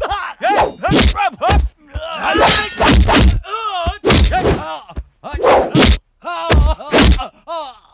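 Film fight sound effects: a fast run of about a dozen punch and stick-blow hits, with men's short shouts and grunts between them.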